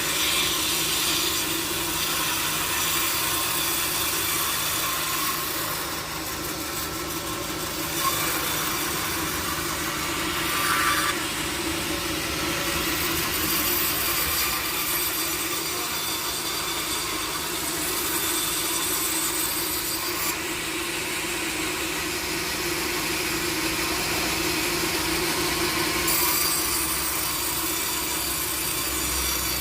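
Sawmill saw cutting through teak wood: a steady, dense rasping whine over a constant machine hum. The cut shifts in tone a few times as it goes on.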